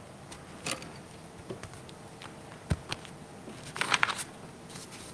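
Handling noise at a pulpit microphone as a tablet in a case is picked up and moved: a few soft taps and a low bump, then a short crackling rustle about four seconds in.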